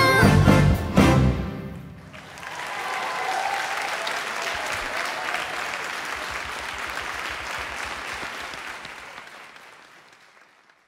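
A singer and a band with strings and horns end a song: the singer holds a final note with vibrato over the band, with a last accent about a second in, and the music dies away. Audience applause then fills the hall and fades out near the end.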